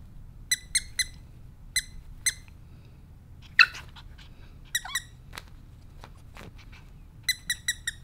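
A squeaky plush duck toy squeaked in short, high bursts: three quick squeaks, then two more, then a run of five near the end. A few different, sliding squeaks come in between.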